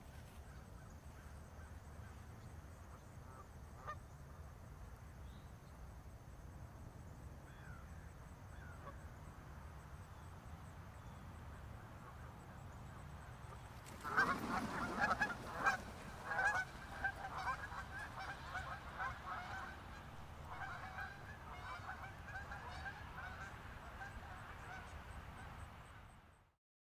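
Flock of Canada geese honking in alarm as they flap up and take off from a herding border collie. A rush of wingbeats and honks starts suddenly about halfway through, and many overlapping honks continue until the sound cuts off near the end. Before that there is only a low steady background hum.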